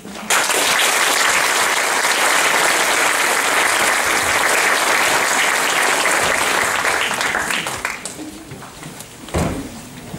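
Audience applauding, starting abruptly and dying away after about eight seconds, followed by a single thump near the end.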